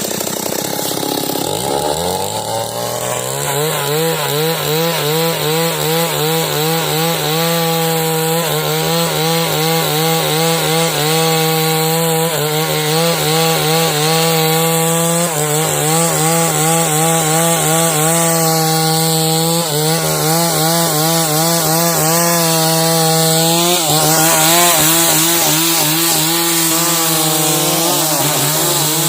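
Chainsaw revving up from idle to full throttle about two seconds in, then running at high revs while sawing lengthwise through timber to cut beams. The engine pitch dips briefly a few times under load.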